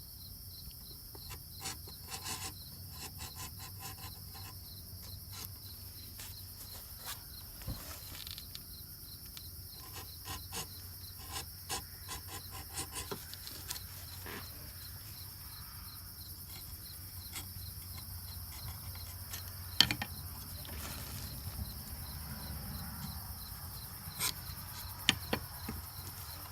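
Short hand-tool strokes on wood, in runs, as the edges of small cherry wedges are chamfered, with a few sharper knocks. Crickets chirp steadily behind.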